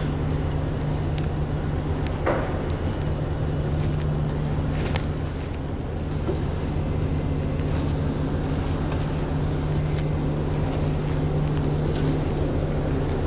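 A large engine running steadily, a low even hum, with a few faint knocks.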